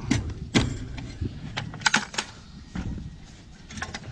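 Heavy-gauge steel fence wire being twisted around a wooden end post with a hand tool: an irregular run of sharp metallic clicks and scrapes, several in quick succession about two seconds in and a few more near the end.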